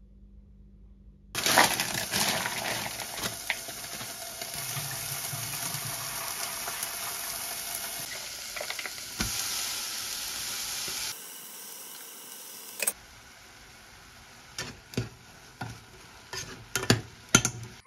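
Kitchen tap running in a steady rush into a plastic bowl as mung bean sprouts are rinsed. After a cut, bean sprouts stir-fried in a saucepan: a faint sizzle with tongs clicking against the pot several times, loudest near the end.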